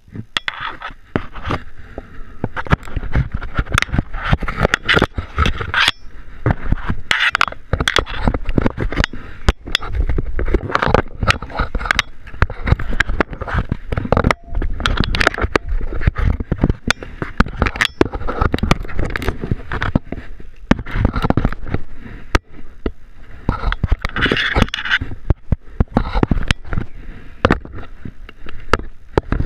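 Climbing a wooden pole hand over hand on metal steps: a dense, irregular run of knocks, clicks and scrapes as hands, gear and the body-mounted camera bump and rub against the wood and the steel cable.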